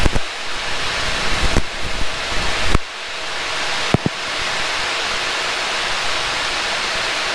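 Steady rushing airflow noise inside a Boeing 737-800 cockpit on short final with the landing gear down and flaps at 40. Low rumbling with a few sharp knocks runs through the first three seconds, and a single click comes about four seconds in.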